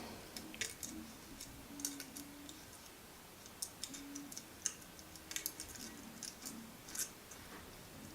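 Faint, irregular light clicks and rustling from rope being threaded through holes in a 3D-printed plastic lamp part.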